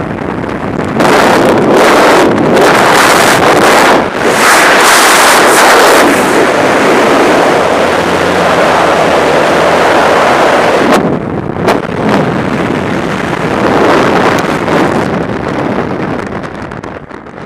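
Freefall wind rushing hard over the camera's microphone. About eleven seconds in it drops off suddenly with a few sharp snaps as the parachute opens, then the wind noise eases and fades away under the open canopy.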